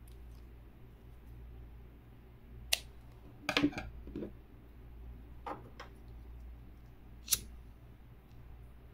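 Scattered light clicks and taps of hands handling a crochet piece and its tools, ending with a sharp click about seven seconds in as a pocket lighter is struck.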